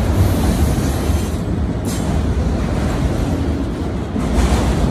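Freight train of autorack cars rolling past close by: a steady rumble of steel wheels on the rails, with a brief hiss about two seconds in.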